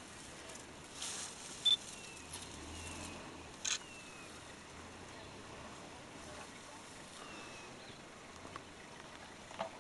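African elephant browsing at close range, tearing and snapping leafy branches from a bush with its trunk: a few sharp snaps, the loudest about four seconds in, over the rustle of leaves.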